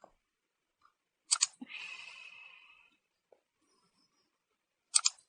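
Computer mouse clicking: a quick double click, a faint brief hiss, then another quick double click near the end.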